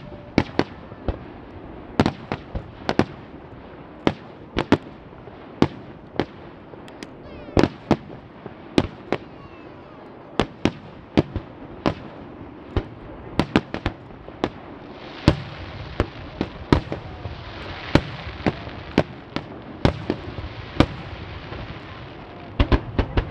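Wide starmine fireworks barrage: a rapid, irregular string of sharp bangs as shells burst, one to three a second. From about two-thirds in a dense crackling hiss joins the bangs for several seconds.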